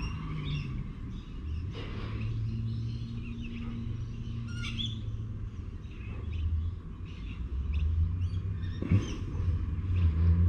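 Birds chirping in short scattered calls, over a low steady rumble that grows louder near the end.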